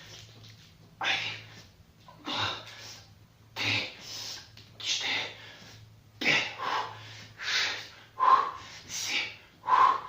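Heavy, forceful breathing: short sharp breaths about once a second, in and out, from the exertion of squatting with a 34 kg kettlebell.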